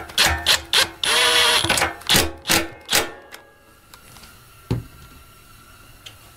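Hand ratchet with a socket extension tightening nuts on the studs of a Honda GX240's air-cleaner base: a string of sharp ratchet clicks and metal clinks, with a short run of rapid clicking about a second in. Later come two light taps.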